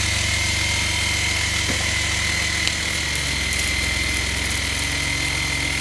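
An engine running steadily at an even speed: a low, evenly pulsing hum with a thin steady whine above it.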